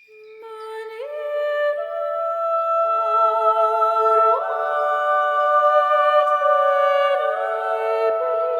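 Sustained wordless singing in several held notes at once, fading in and building a chord that shifts to new pitches about a second in, around four seconds in, and again near the end.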